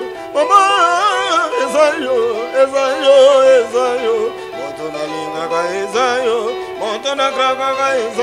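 A voice singing a melody with heavy, wavering vibrato, accompanied by electric guitar.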